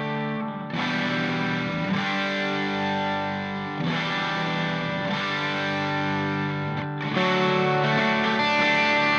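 Background music: distorted electric guitar chords, changing every few seconds.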